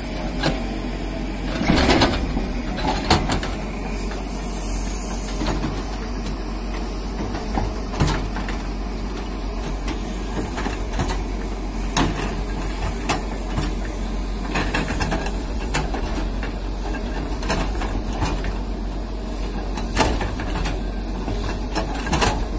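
Diesel engine of a JCB crawler excavator running steadily while its bucket digs into soil, with occasional sharp knocks and clanks from the bucket and arm.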